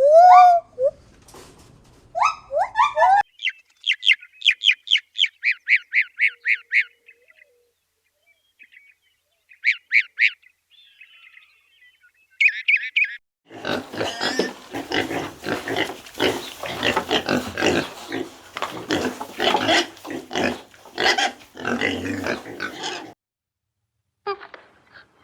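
A series of farm animal calls: pitched calls at first, then quick rows of high chirps, then about ten seconds of loud, rapid pig calls.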